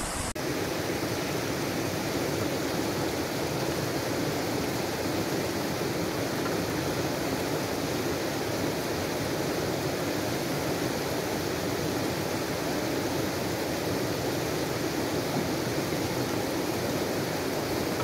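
Steady, even rushing noise like running river water, starting abruptly a moment in and holding unchanged throughout.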